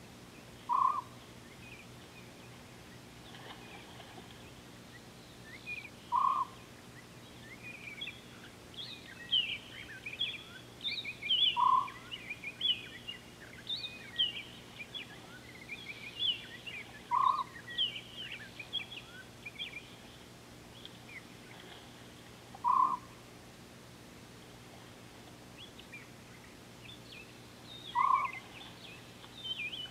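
Wild birds calling: one bird gives a short single note six times, about every five and a half seconds, while others twitter and chirp in quick high notes, busiest through the middle. A faint steady hum runs underneath.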